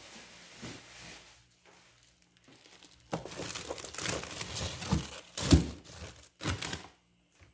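Plastic bags crinkling as a hand shifts bagged food about, faint at first and louder from about three seconds in, with the sharpest crackles near the end.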